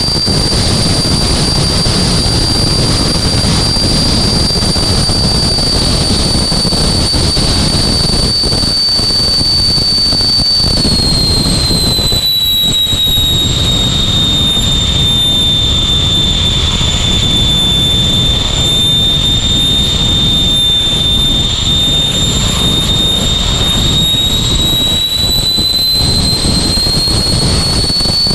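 Jet engine of a jet car heard from inside its cabin, running with a loud rumble and a high whine; the whine drops in pitch about ten seconds in, holds, and climbs again near the end.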